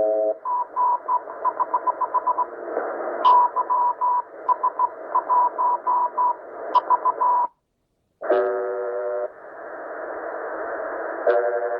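Shortwave radio in sideband mode receiving a Morse code tone, keyed in dots and dashes over hiss. After a brief dropout, the UVB-76 'Buzzer' station's harsh buzz sounds twice, about a second each, with static between.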